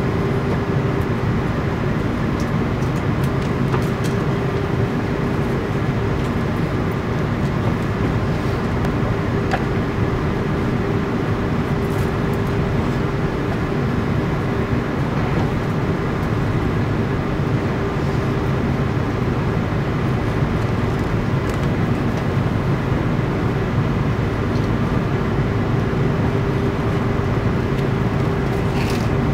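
Airbus A330-300 cabin noise while the airliner taxis: a steady rumble and hiss with a constant low hum.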